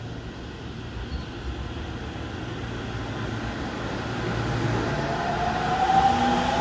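JR East E231-0 series electric train pulling away from the platform: a steady low hum, then about five seconds in the traction inverter and motors start a rising whine as the train accelerates, growing louder.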